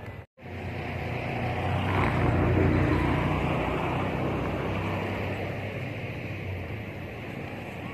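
Motor vehicle engine running: a steady low hum that swells about two seconds in and slowly fades, as of a vehicle passing by. The sound cuts out briefly just after the start.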